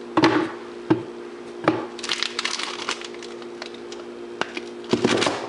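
Kitchen items handled on a counter: several sharp knocks and cracks, with a quick run of small clicks and crackles about two seconds in, over a steady low hum.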